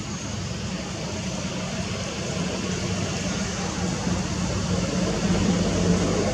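Steady outdoor background noise, a low rumble under an even hiss, growing slightly louder toward the end.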